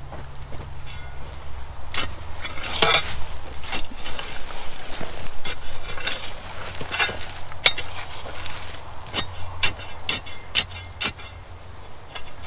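Soil being shovelled into a hole and worked in: irregular scrapes and knocks of a spade in dirt, over a steady low engine hum.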